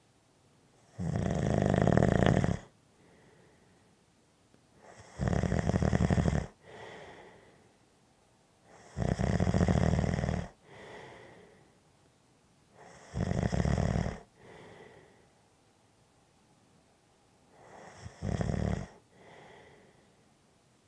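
Steady, regular snoring: five loud snores about every four seconds, each followed by a softer breath, the last one shorter.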